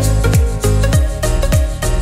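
Upbeat background music with a steady beat: a deep kick drum about twice a second under pitched instruments.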